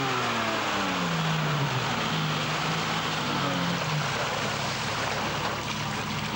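Mercedes-Benz Unimog engine slowing, its note falling over the first couple of seconds as the truck crawls through deep mud, then holding lower and fading about two-thirds of the way in under a steady rushing noise.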